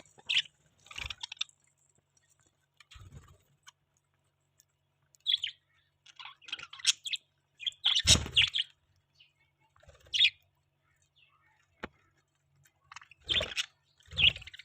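Budgerigars chirping in short, scattered bursts of calls, with a few sharp clicks and knocks among them; the loudest cluster comes about halfway through.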